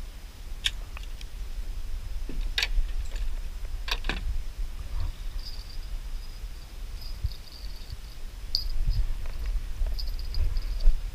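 Outdoor riverbank ambience: a steady low wind rumble on the microphone, a few sharp clicks in the first four seconds, and high-pitched insect chirping that comes and goes from about five seconds in.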